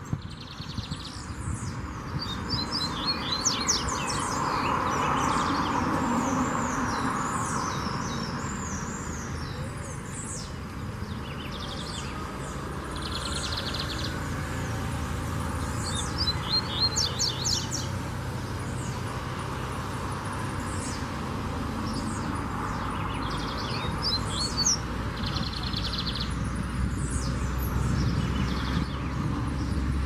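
Lined seedeater (bigodinho) singing: short phrases of quick high chirps and rapid trills, repeated every few seconds, over steady background noise.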